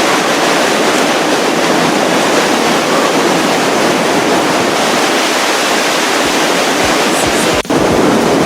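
Loud, steady rush of white water on the Zambezi River, broken by a brief dropout near the end.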